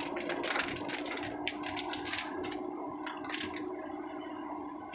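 Raindrops striking a moving car's windshield and roof in irregular clicks, heard inside the cabin over a steady drone from the car.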